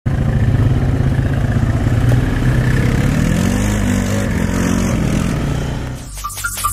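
ATV engine running on a rough dirt trail, its pitch rising and falling with the throttle. Near the end it fades and short electronic tones of an intro jingle start.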